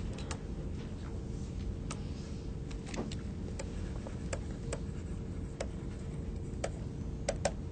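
Irregular light clicks of a stylus tapping on a tablet PC screen during handwriting, bunching together near the end, over a steady room hum.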